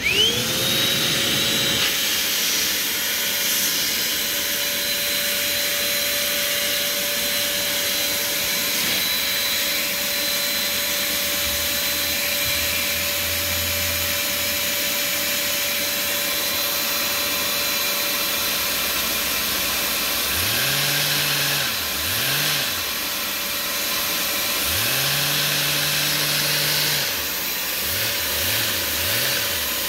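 A vacuum cleaner motor spins up and runs with a steady whine, driving a Lego single-piston vacuum engine with a 3D-printed roots-style supercharger on a cold start. From about 20 seconds in, the little engine's beat revs up and drops back several times as its throttle is blipped.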